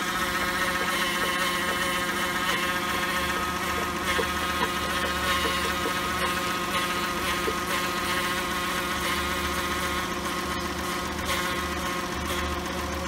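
Chrysler 3.6-litre V6 idling with a steady high whine from the 62TE six-speed automatic transmission's pump, which is cavitating because the transmission is low on fluid while fluid is being topped up.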